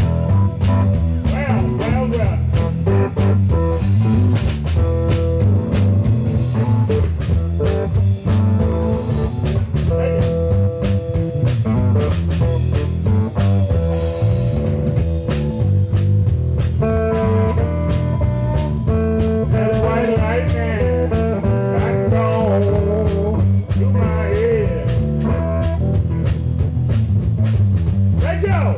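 Live electric blues band playing: electric guitar over bass and a drum kit keeping a steady beat, with a man's voice singing at times.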